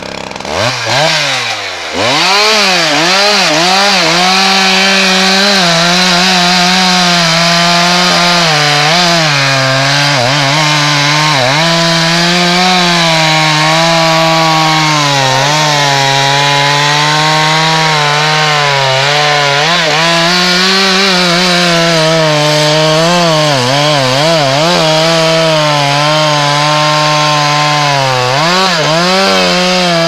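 Two-stroke chainsaw revved up to full throttle over the first couple of seconds, then cutting steadily through a thick tree trunk. Its engine pitch sags and recovers again and again as the chain loads up in the cut.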